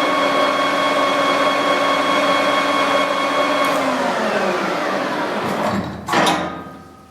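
Victor 1860E gearhead lathe running steadily at 1,350 RPM with a gear whine, then winding down in pitch from a little over three seconds in as the spindle coasts to a stop. A short, loud clatter follows about six seconds in.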